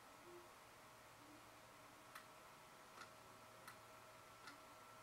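Near silence: faint room hum, with four soft, short computer clicks about a second apart in the second half, as on-screen objects are selected and dragged.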